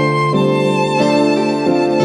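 Instrumental background music: a violin melody over held string chords, the notes changing every half second or so.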